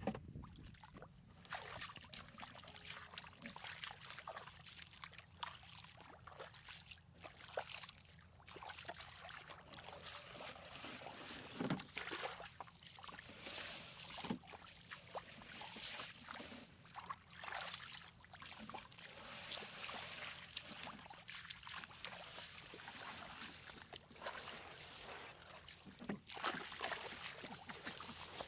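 Bare feet wading through a shallow muddy water channel: irregular splashes and sloshing of water, step after step.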